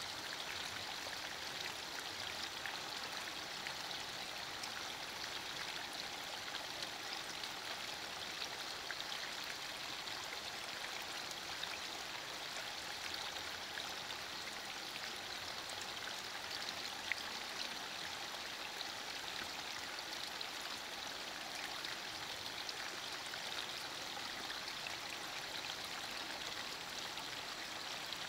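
Steady rain falling, an even hiss with a fine patter of drops and one slightly sharper drop tick about two-thirds of the way through.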